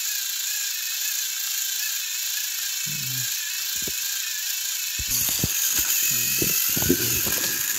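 Motorized Thomas and Spencer toy engines whirring steadily, their electric motors and gears straining as they push against each other on plastic track. About five seconds in, clattering knocks as Thomas is shoved up and tips off the rails.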